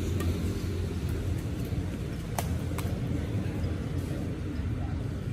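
Badminton rackets striking a shuttlecock during a rally: sharp pops, two of them about half a second apart a little over two seconds in, over a steady low rumble of city traffic.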